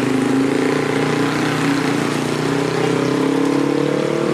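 Road vehicle's engine running steadily close by, its pitch rising slowly over the last second or so as it speeds up.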